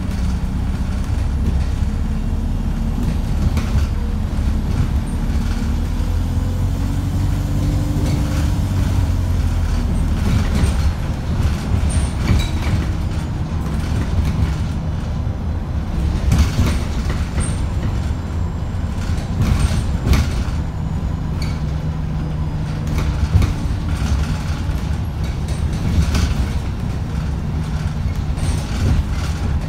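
Alexander Dennis Enviro350H hybrid bus heard from inside while driving: a steady low drone with a tone that rises and falls about six to nine seconds in, and scattered body rattles and knocks through the second half. The engine is being driven hard, and the uploader calls it unhealthy.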